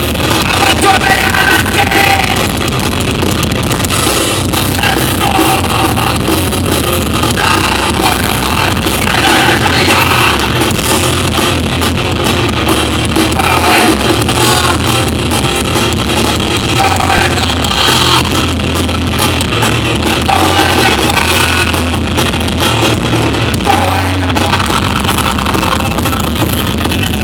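Live rock band playing loud, with a singer, electric guitar and drum kit.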